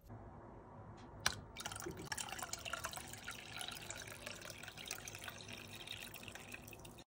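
Starch-and-water mixture being poured from a bowl into a pot of water: a steady splashing, trickling liquid sound that follows a single sharp click about a second in. It cuts off abruptly near the end.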